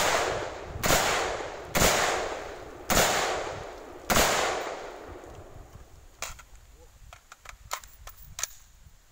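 Five single shots from an M4-type 5.56 mm carbine, fired about a second apart, each trailing off in an echo: the standing string of five in a stand-then-kneel shooting drill. A few light clicks and rattles follow as the shooter drops to a kneel.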